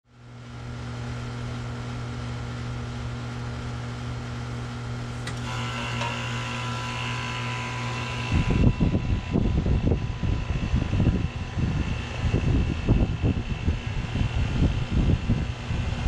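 1991 Comfortmaker two-ton heat pump outdoor unit with a Bristol compressor starting up in heat mode. A steady low hum runs from the start; about five seconds in there is a sharp click followed by a few seconds of hissing. From about eight seconds on, gusty low rumbling sets in, which is the unit's fan air buffeting the microphone.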